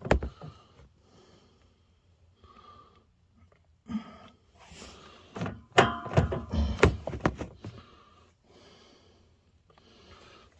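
A string of knocks, clicks and clatter from tools and pipe fittings being handled, sparse at first and then a dense run of sharp knocks partway through.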